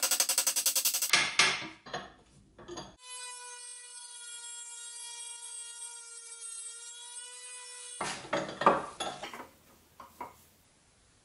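Rapid light hammer blows on a 1/8-inch steel rod clamped in a bench vise, about ten a second, followed by a few scattered knocks. Then a Dremel rotary tool with a small cut-off wheel runs with a steady high whine for about five seconds while it cuts through the rod, its pitch sagging slightly under load before it stops. The rest is clicks and knocks of the metal being handled in the vise, with one sharp knock the loudest.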